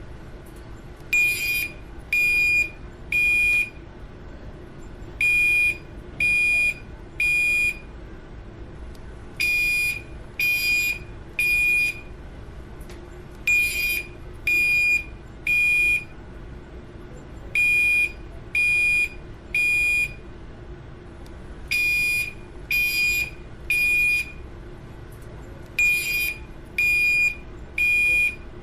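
Bank fire alarm sounder beeping a high tone in groups of three half-second beeps, each group about four seconds apart: the temporal-three evacuation signal.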